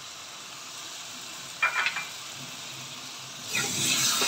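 Vegetables frying with a steady sizzle in a steel kadai. A brief clatter comes about one and a half seconds in. From about three and a half seconds in, a steel spatula scrapes and stirs the mix, louder than the sizzle.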